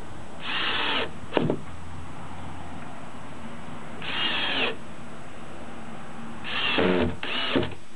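Cordless screw gun driving screws in short bursts: four runs of the motor, each under a second, the last two close together, with a sharp clack after the first and the last.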